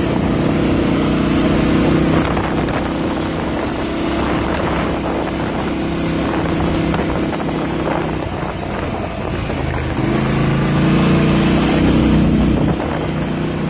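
ATV engine running on the move. It revs up about ten seconds in and drops back near the end.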